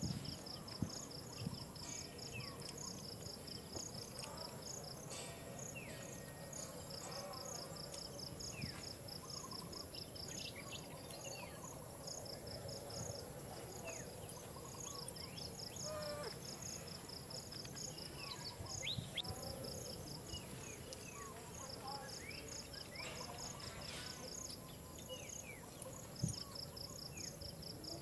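Insects trilling: a high, fast pulsing buzz that comes in bouts of several seconds with short pauses between, over scattered short high chirps.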